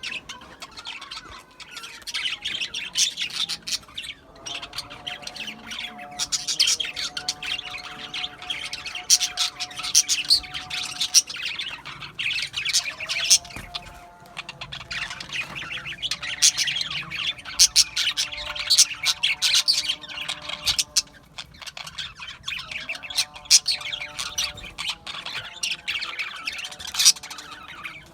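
A flock of budgies (budgerigars) chirping and squawking continuously, a dense rapid chatter of short high calls. Low sustained steady tones run underneath for several seconds at a time.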